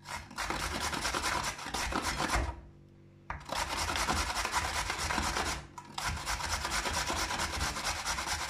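A carrot being grated on a stainless-steel box grater: runs of quick scraping strokes, in three spells broken by short pauses.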